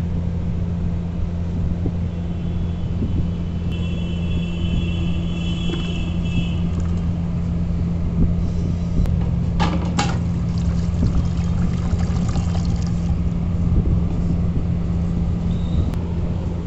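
Steady low droning hum throughout, with a couple of sharp metallic clinks from the steel pots and tongs about ten seconds in.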